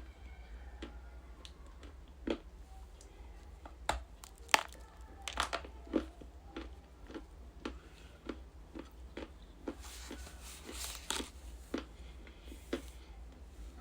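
Ice being bitten and chewed close to the microphone: sharp crunches and cracks at irregular intervals, the loudest about four and a half seconds in, with a denser stretch of grinding crunches around ten to eleven seconds in.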